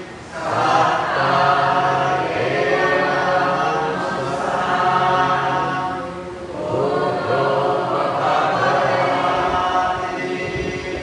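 Buddhist devotional chanting by several voices in unison, in long held phrases on a few steady pitches, with a brief pause for breath about six and a half seconds in and another near the end.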